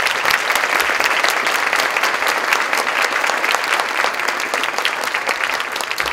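A roomful of people applauding: many hands clapping together in a dense, steady patter.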